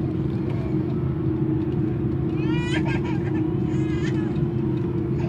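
Airbus A330-300 cabin noise: a steady engine rumble with a constant hum. A brief high-pitched voice sounds about two and a half seconds in and again about four seconds in.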